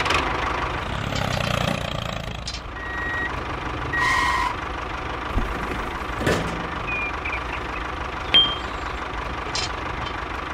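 Vehicle engine running steadily, with two short reversing beeps about three and four seconds in. A few sharp knocks or clicks come later, the loudest near the end.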